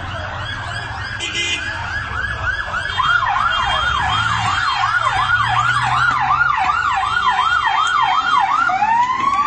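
Emergency vehicle siren sounding a fast yelp, about three up-and-down sweeps a second, growing louder about three seconds in as it approaches, then switching to a slow rising wail near the end.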